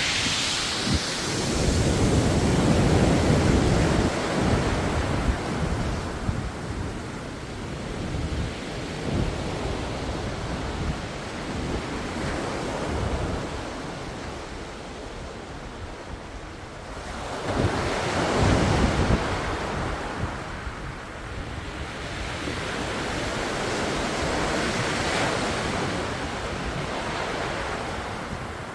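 Ocean surf: waves breaking and washing onto the shore, with larger surges about two seconds in and again about eighteen seconds in. Wind buffets the microphone throughout.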